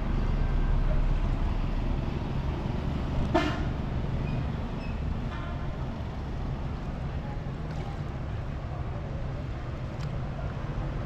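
A vehicle horn toots once, briefly, about three seconds in, over a steady low rumble.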